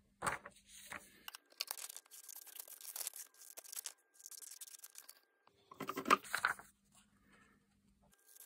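Scissors cutting through a sheet of paper in irregular stretches, with paper rustling and crinkling as it is handled; the loudest rustle comes about six seconds in.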